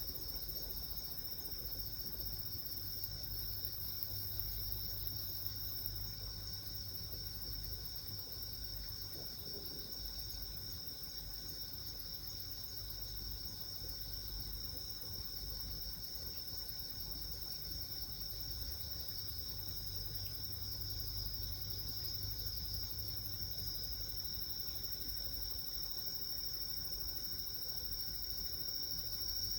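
A chorus of night insects trilling steadily at a high pitch, over a low rumble.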